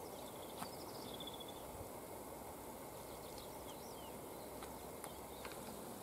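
Faint songbird song: a short high trill about a second in and a few quick descending whistles midway, over a steady low background rush, with a few soft clicks.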